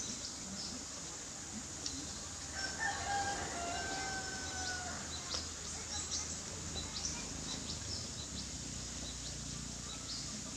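A rooster crowing once, about two and a half seconds in: a few short notes run into one long held note that sags slightly at the end. Scattered short high ticks and a faint low hum lie under it.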